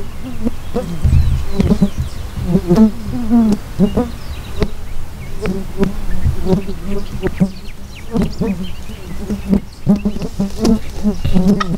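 An insect buzzing close to the microphone, its pitch wavering as it moves about, with scattered soft clicks.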